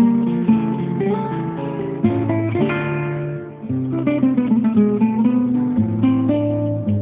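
Background music: acoustic guitar picked and strummed, with a steady bass line.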